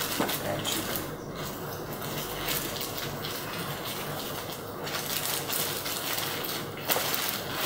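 Plastic bag rustling, with irregular light clicks and knocks as packaged items are handled and bagged.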